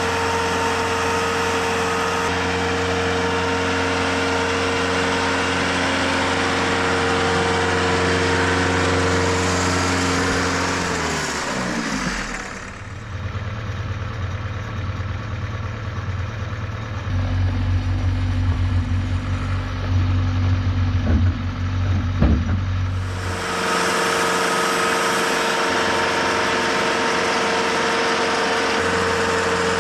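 Engine running steadily. About eleven seconds in its pitch slides down and a deeper, duller engine sound with a couple of knocks takes over for about ten seconds, then the first steady running returns.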